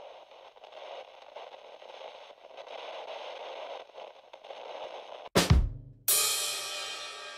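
Channel intro music: about five seconds of a steady hissing, static-like texture, then a sudden heavy drum hit and a loud, bright, ringing crash that slowly fades.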